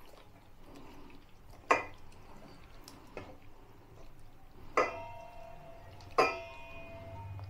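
A utensil knocking against a bowl while mashing khoa with milk into a batter base: four knocks about a second and a half apart, the last two ringing on.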